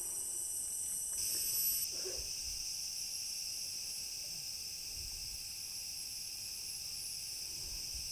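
A chorus of tropical rainforest insects: a steady, high-pitched shrill in several layers, with a lower layer joining about a second in.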